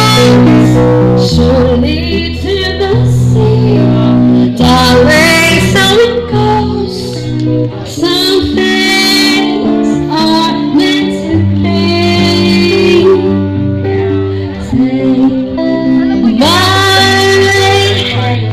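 Song with a singing voice over sustained bass notes, laid over the footage as background music.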